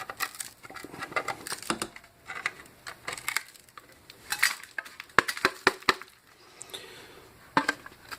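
Pliers working the thin sterling silver edge of a brush or mirror back, with irregular metallic clicks, clinks and crunching as old resin cracks loose; a quick run of four sharp clicks comes about five seconds in.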